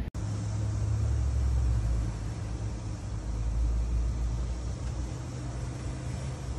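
Cars driving through flood water across a street, their tyres sloshing and throwing up spray, over a steady low hum.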